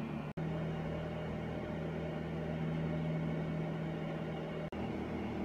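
Countertop electric oven running while baking: a steady hum with a low tone, cut off abruptly twice for an instant, about a third of a second in and again near the end.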